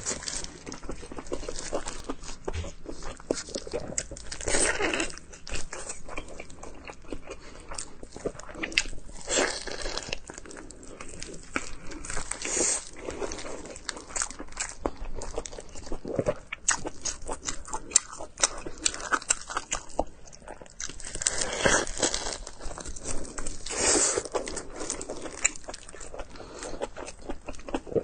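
Close-miked eating of pork: biting and chewing with many irregular wet clicks and smacks, coming in louder clusters every few seconds.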